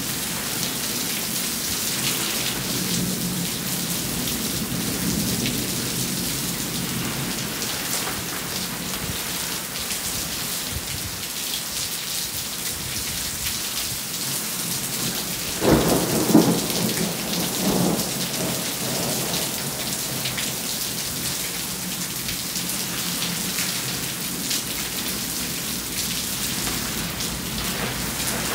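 Steady rain falling throughout, with a roll of thunder breaking in about halfway through and rumbling on in waves for a few seconds.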